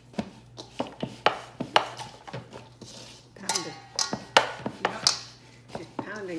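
Soda bread dough being kneaded by hand in a stainless steel mixing bowl: a run of irregular knocks as the dough is pressed and pushed against the metal bowl, some half a second apart.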